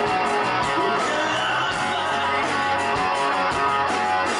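Background music with strummed guitar, played steadily.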